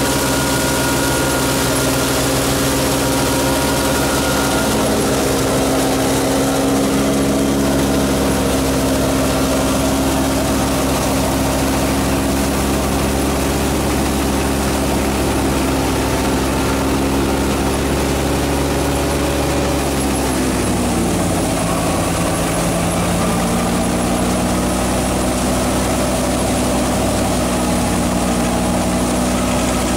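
Batala wheat thresher running, driven through a PTO shaft by a New Holland Fiat 480 diesel tractor: a loud, steady machine hum. About two-thirds of the way through, the pitch drops and settles at a lower note.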